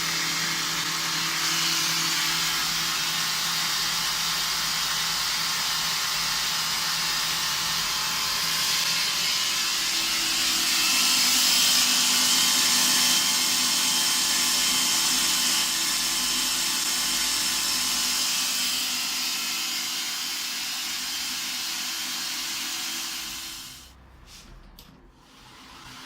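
Homemade belt grinder running: a steady motor hum under the hiss of the abrasive belt, louder for a few seconds about halfway through. The sound drops away abruptly near the end, then starts to come back.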